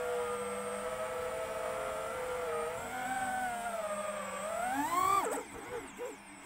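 FPV drone's electric motors whining, their pitch rising and falling with the throttle. About five seconds in the whine climbs sharply, then drops to a low, wavering idle for about a second as the throttle is cut, before spooling back up.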